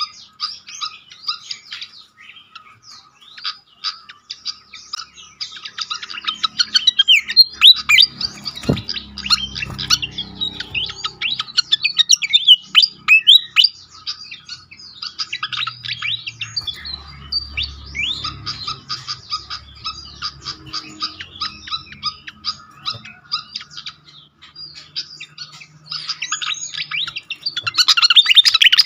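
Pied fantail calling and singing: a dense run of rapid, high chirps and squeaky whistles, coming in busy bursts. It is loudest near the end.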